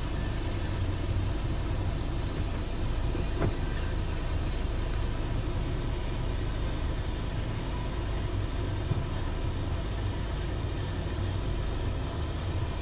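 Steady low vehicle rumble heard from inside a car, with a single brief knock about three and a half seconds in.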